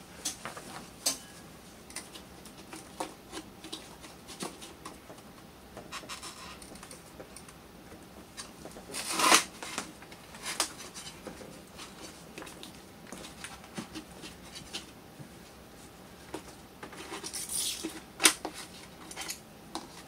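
Scattered small clicks, taps and scrapes of hands working parts and wiring at the hub motor of an electric unicycle, with a louder scrape about nine seconds in and another cluster near the end.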